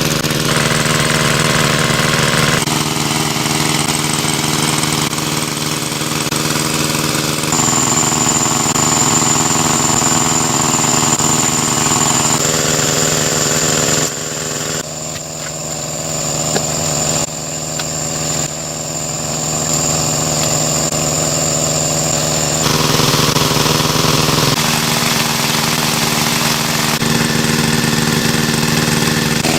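Engine of a water pump running steadily, its tone shifting abruptly several times. A thin high whine sits over it through the middle stretch.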